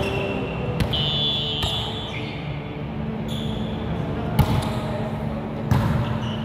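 A volleyball being struck by players during a rally: a few sharp hits, the loudest about four and a half seconds in and another near six seconds, over the steady background of a large gym.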